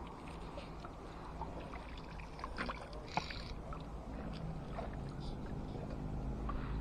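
Fly line being stripped in by hand from a boat: soft rubbing and small scattered clicks, the sharpest about three seconds in. Underneath is a steady low rumble of wind and water.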